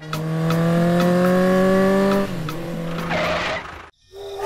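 A vehicle engine running with a steady drone that rises slowly in pitch, then drops and fades about two seconds in. A short hiss sounds about three seconds in, and the sound cuts off abruptly just before the end.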